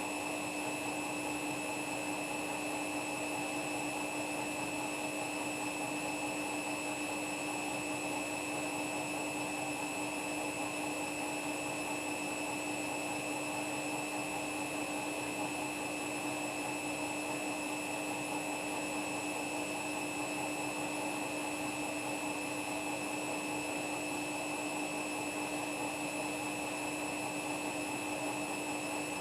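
Washing machine on a spin cycle: the drum spins at a constant speed, giving a steady motor whine over an even rushing hum, with no change and no knocks.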